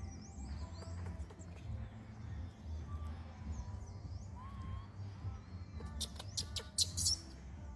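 High, gliding chirping calls over a low steady rumble, with a brief burst of loud, sharp squeaks and clicks about six seconds in.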